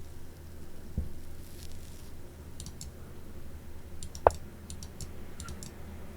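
Computer mouse clicking several times in small, light clicks, with a dull knock about a second in and a single louder knock just after four seconds.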